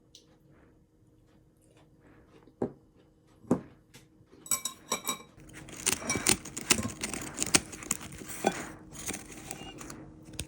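An Akita dog biting into and chewing crisp fried tempura batter with no filling. Two sharp crunches come a few seconds in, then several seconds of dense, crackly crunching.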